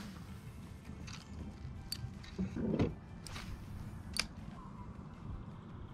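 Faint handling sounds of a fishing rod and spinning reel in a kayak during a slow lure retrieve: a few sharp, separate clicks about a second apart, and a soft low knock about two and a half seconds in.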